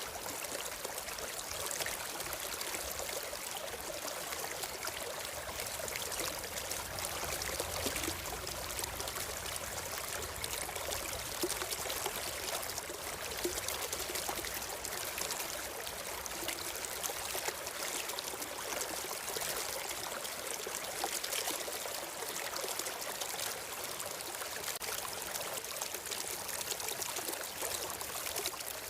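A stream of water flowing and trickling steadily, an even rushing wash with fine splashy flicker.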